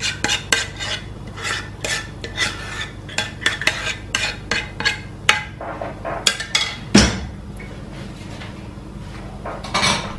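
Spoon scraping and clinking against a saucepan as thick béchamel sauce is scooped and tipped out, a quick string of short scrapes and taps, with one heavier knock about seven seconds in and a short burst of scraping near the end.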